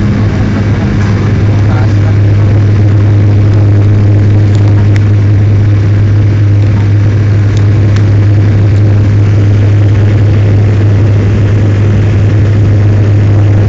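Airliner cabin noise during the climb after takeoff: a steady, loud rush of engine and airflow noise over a constant deep hum.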